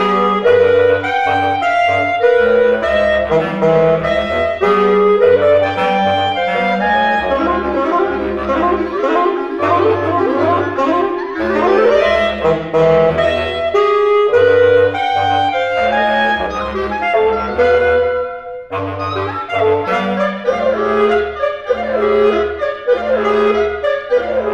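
Reed quintet of oboe, clarinet, saxophone, bassoon and bass clarinet playing together, with short repeated low notes from the bassoon and bass clarinet under busy upper lines. All five cut off together for a moment about three-quarters of the way through, then come straight back in.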